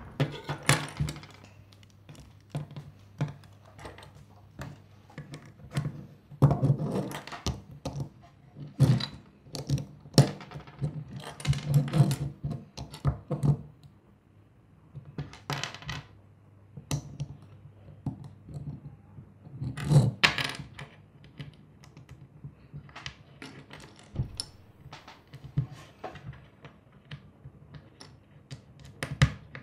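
Loose plastic Lego bricks clicking and clattering against each other and a wooden tabletop as pieces are picked out and snapped together. Irregular small clicks, busiest from about six to thirteen seconds in and again around twenty seconds.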